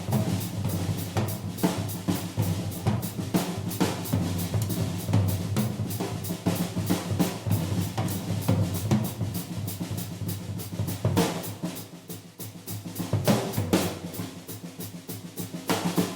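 Vintage 1970 Ludwig three-ply drum kit played hard: rapid snare, tom and bass drum strokes over ringing cymbals. It eases off briefly about twelve seconds in, with loud hits just before and after.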